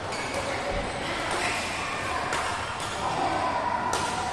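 Badminton hall ambience between rallies: a few sharp clicks of rackets striking shuttlecocks, about a second apart, with faint voices in the large hall.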